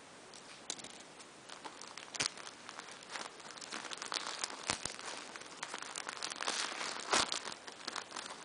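Packaging being crinkled and torn open by hand: irregular crackling and rustling that gets busier and louder about halfway through.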